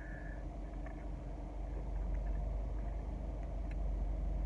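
Low, steady vehicle rumble heard from inside a car cabin, growing louder about two seconds in, with a few faint ticks over it.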